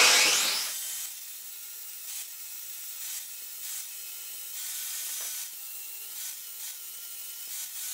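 Small angle grinder with an abrasive disc running against the TIG-welded aluminium rim of a motorcycle clutch basket, smoothing the weld. It makes a steady abrasive hiss over a faint steady whine, louder in the first second and then settling.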